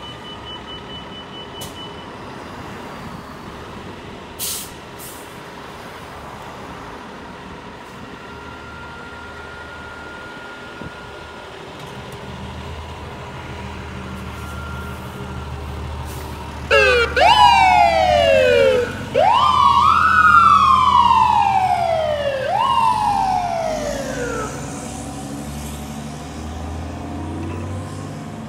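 Fire engine pulling out, its engine rumbling low, then its siren sounding in several sweeps, each winding up quickly and falling away slowly. The siren starts a little past the middle and is the loudest part.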